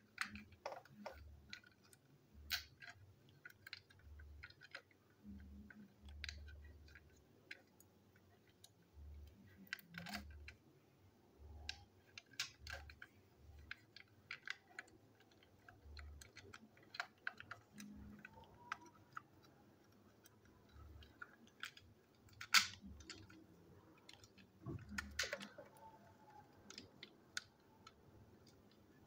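Small plastic toy train engine being handled and worked on by hand: scattered light clicks and taps of plastic parts, with soft bumps on the tabletop. A sharper click comes about 22 seconds in and another cluster near 25 seconds.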